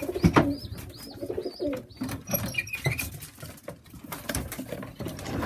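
Pigeons cooing in a loft, low repeated coos, with scattered sharp taps and clicks.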